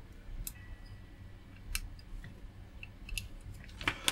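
A few faint, sharp clicks and taps as an electrolytic capacitor on its wire leads is bent and fitted against a circuit board by hand, with a quick cluster of clicks near the end.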